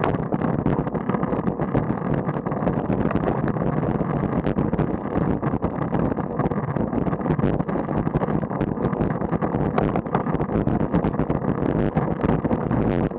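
Steady wind rush buffeting the microphone of a camera on a moving road bike, mixed with tyre and road noise, with small crackles throughout.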